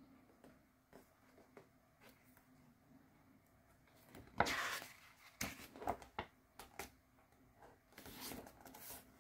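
Pages of a glossy album photo book being handled and turned: faint soft taps, then a paper swish about halfway through, followed by a few sharp rustles and clicks and another softer swish near the end.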